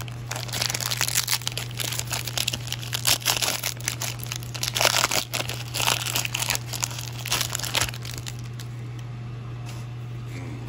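Plastic wrapping of 2019 Prizm baseball card packs crinkling and tearing as it is ripped open by hand, in bursts for about eight seconds, then stopping. A steady low hum runs underneath.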